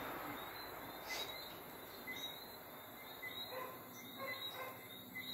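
Faint night-time chorus of short, high chirps repeating irregularly every half second or so, over a low hiss.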